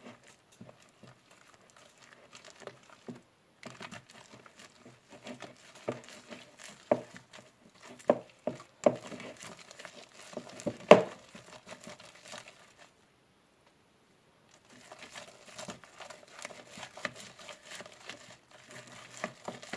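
A slime mixture of glue, shaving foam and contact lens solution being stirred in a bowl: irregular crackling and sticky squishing with clicks and knocks of the stirrer against the bowl, stopping briefly near the middle.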